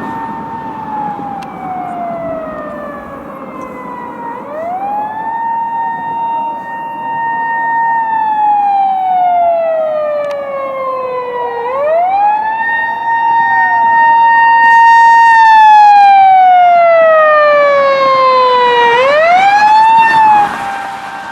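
Japanese emergency-vehicle siren wailing: each cycle rises quickly, holds a high note for about three seconds, then falls slowly, repeating about every seven seconds, with a second siren fainter behind it. It grows louder and then cuts off suddenly near the end, leaving a fainter steady tone.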